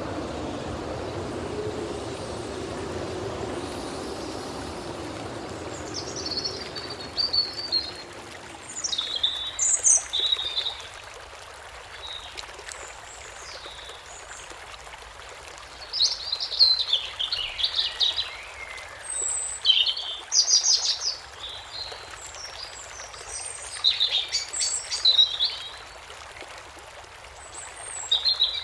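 Small birds singing in short chirping phrases that come and go over a steady trickle of running water. A low hum is heard over the first several seconds and fades out.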